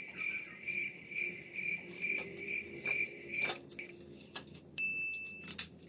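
Cricket chirping in a steady rhythm, about two chirps a second, stopping about three and a half seconds in. A short high beep follows near the end.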